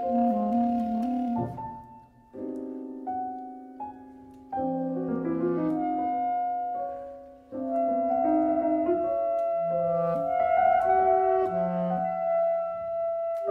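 Two B-flat clarinets and two pianos playing a slow, soft contemporary classical passage: quiet clarinet phrases and a held clarinet note over sparse piano figures and sustained piano chords. The sound falls almost away twice, about two seconds in and again near the middle.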